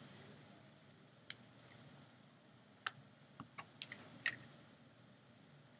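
Faint, scattered clicks and taps of fingers handling a roll of glue dots and small paper pieces on a cutting mat, about seven light ticks, the loudest a little past four seconds in.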